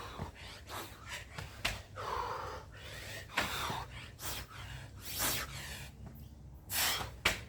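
A person breathing hard in quick, irregular breaths with loud gasps, out of breath from doing burpees between counted reps.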